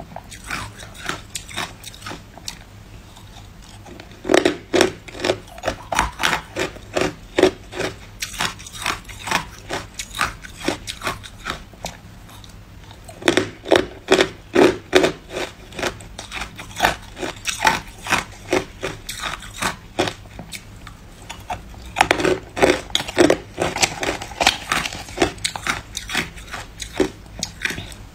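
Hard ice cubes bitten and crunched between the teeth: a run of sharp, rapid crunches, with three louder bouts of biting and quieter chewing between.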